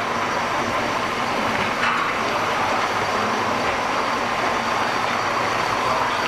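Beaten egg cooking in a hot non-stick frying pan, a steady hiss with a low rumble of kitchen background beneath.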